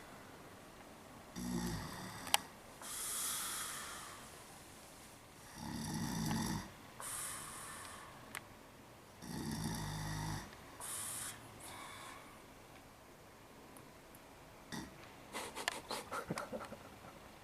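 A heavyset man snoring in deep sleep: three low snores about four seconds apart, each followed by a hissing breath. A run of sharp clicks comes near the end.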